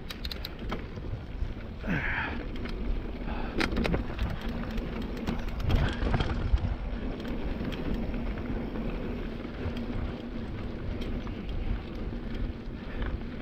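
Mountain bike rolling down rocky dirt singletrack: tyres running over dirt and loose rock, with the bike rattling throughout. Sharp knocks come as it hits rocks, loudest about six seconds in.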